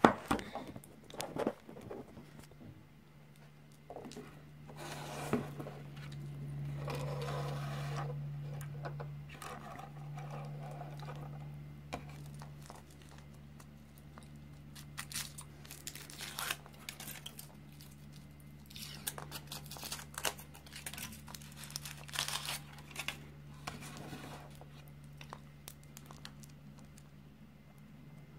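Aluminium foil wrapper of a Kinder Surprise chocolate egg crinkling and tearing as it is peeled off by hand, in irregular bursts. A sharp knock at the very start, and a low steady hum underneath, strongest in the first half.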